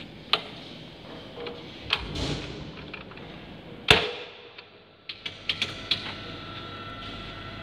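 Switches and contactors in a milling machine's electrical control cabinet clicking as it is powered up, with one loud clunk about four seconds in as the main switch is thrown, followed by a quick run of clicks. A steady electrical hum then sets in as the machine comes live.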